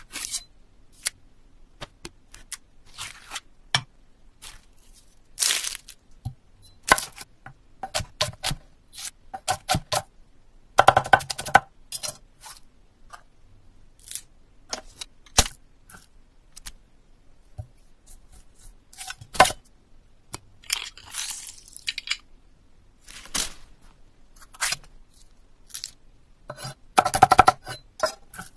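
A run of separate crisp cuts, scrapes and clicks as a knife works through objects and hands handle them on a wooden surface. Two bursts of rapid clattering stand out, one about eleven seconds in and one near the end, the second as small plastic game pieces tumble together.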